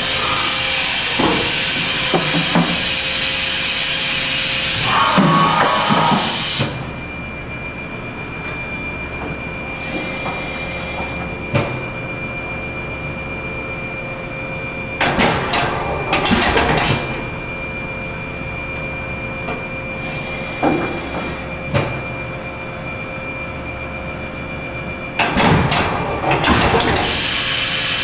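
Okuma & Howa Millac 438V CNC vertical machining center running through a program: a steady whine from the spindle and drives, with a loud hiss for the first six seconds or so. After that it runs quieter, broken by single sharp knocks and two loud spells of clattering and hissing about ten seconds apart.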